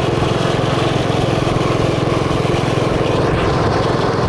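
Mini bike's small single-cylinder engine running steadily at an even, constant speed while being ridden.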